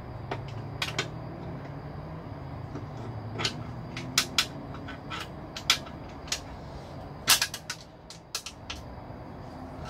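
Irregular sharp knocks and clanks from tools and parts being handled in a car's engine bay during an engine swap, about fifteen in all, the loudest a little past seven seconds in, over a steady low hum.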